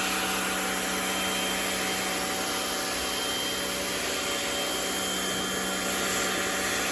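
Rock&Rocker HWY12 corded electric pressure washer running steadily, its motor and pump humming under the hiss of the water jet spraying the patio.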